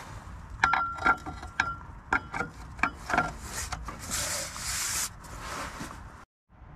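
Fiat 500 TwinAir clutch pressure plate being offered up and fitted over the alignment tool onto the flywheel. First comes a quick run of sharp metal clinks with a ringing note, then a scraping rub as the cover is slid into place.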